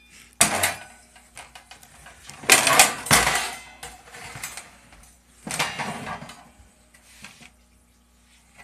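Metal clattering and rattling from the aluminium Keene A52 sluice box and its expanded-metal riffle being handled over the mats. It comes in three bursts, about half a second, two and a half seconds and five and a half seconds in, and the middle one is the loudest.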